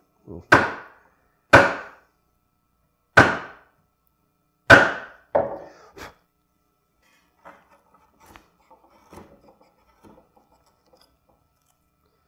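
Bench chisel chopping and paring into a poplar block to flatten the floor of an inlay recess: a series of sharp wooden knocks, roughly one every second or so, then faint scraping of light paring cuts after about six seconds.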